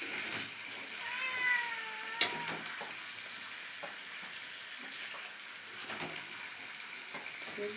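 A cat meows once, a drawn-out meow of about a second, over the steady sizzle of chicken frying in a pan; a sharp click follows right after the meow.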